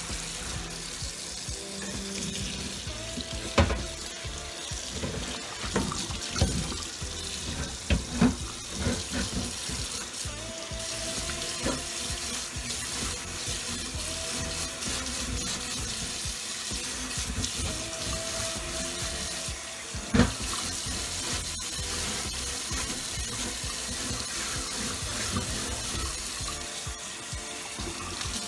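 Kitchen tap running into a stainless steel sink while a grill grate is scrubbed under the water with a dish brush, with a few sharp clunks of the grate and brush against the sink, the loudest about 20 seconds in.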